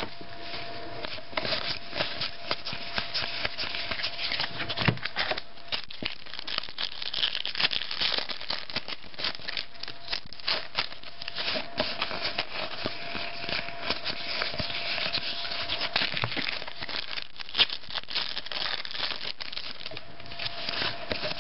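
Trading cards being handled and flipped through, with foil pack wrappers crinkling: a continuous run of rustles and small clicks.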